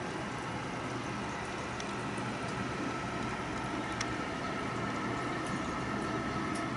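Steady bubbling of an aquarium air stone, with an air pump's faint steady hum and a few scattered small pops.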